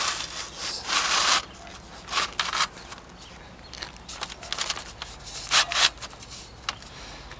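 Roof vent flashing scraping and rustling against roof shingles as it is pushed up under them into place, in a series of short bursts with the longest about a second in.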